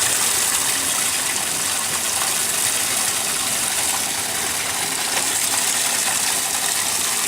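Washing machine filling with water: a steady rush of water pouring into the drum at the start of a wash cycle.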